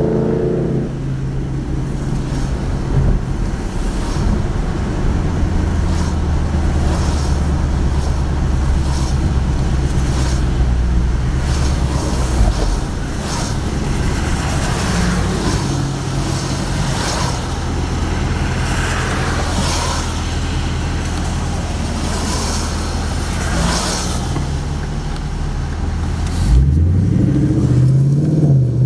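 2011 Ford Mustang GT's 5.0-litre V8 through Roush axle-back exhausts, heard from inside the cabin while driving: a low, steady note while cruising, then rising and louder as it accelerates near the end. Tyres hiss on the wet road throughout.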